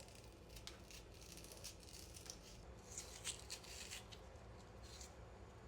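Faint scraping and clicking of a utensil carving out the centre of a raw onion, in short irregular strokes.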